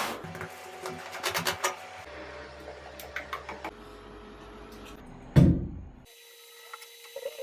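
A series of sharp clicks and knocks, with one louder knock about five seconds in, followed by lighter ticking.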